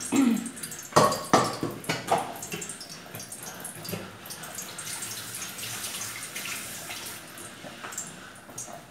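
A stainless steel pot knocks against hard surfaces a few times, then a kitchen tap runs water from about three seconds in until near the end.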